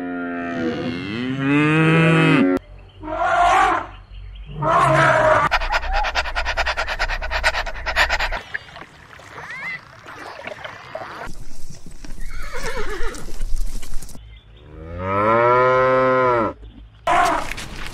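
Cows mooing: a long call at the start, two shorter calls a few seconds in, and another long, rising-then-falling moo near the end.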